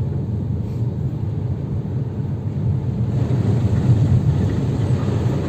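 Steady low rumble of a car running, with a hiss that grows about three seconds in.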